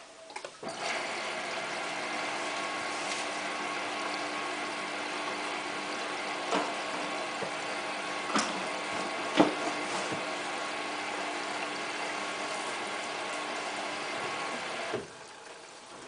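Hotpoint Ultima WT960 washing machine taking in water early in its cottons 60 wash: a steady rush of water through the inlet valve that starts about half a second in and cuts off sharply near the end. A few brief knocks come through the middle.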